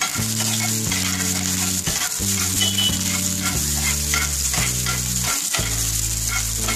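Chopped onion sizzling in white cooking oil in a nonstick frying pan over a very low gas flame, with a spatula stirring and scraping through it.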